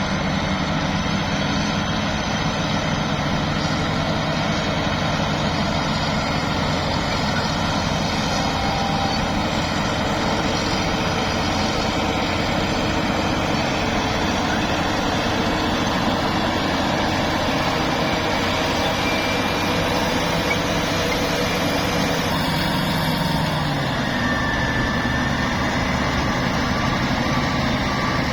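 Heavy diesel engine of a construction machine running steadily, its pitch dropping a step about 23 seconds in as the revs come down.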